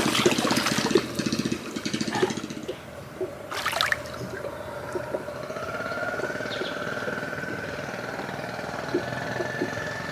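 Water sloshing and splashing as hands grope through muddy water for catfish, with small knocks, dying down about four seconds in. After that a faint steady drone carries on.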